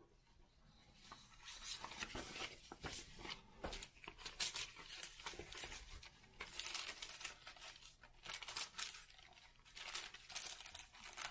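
Paper rustling and crinkling as a facsimile lyric sheet is worked into a translucent paper envelope in a hardcover book, with sharp crackles. The rustling starts about a second in.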